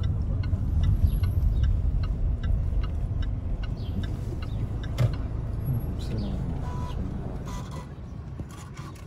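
Car moving slowly, heard from inside the cabin: a steady low engine and tyre rumble, with a light regular ticking about three times a second through the first half. The rumble eases off near the end.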